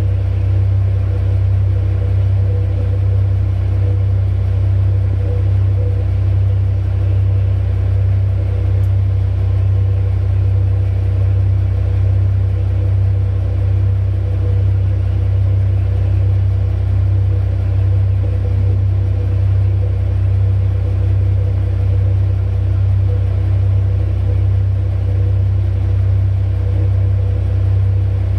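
Heavy mining machinery running: a loud, steady, deep diesel drone with a regular low throb every second or so.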